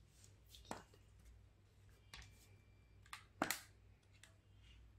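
Quiet handling of a large power bank: a few light clicks and knocks from its case as it is turned over in the hands and set against the mat, the loudest about three and a half seconds in.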